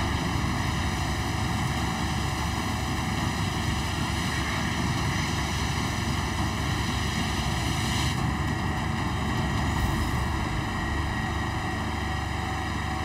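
Fire extinguisher discharging with a loud hiss onto a burning bilge pump in a boat's engine room, over a steady low machinery rumble and a sounding alarm; the hiss thins out about eight seconds in.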